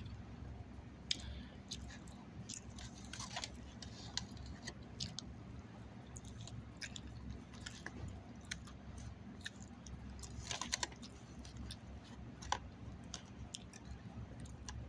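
A person chewing food close to the microphone, mouth open, with irregular wet clicks and small crunches, over a steady low hum.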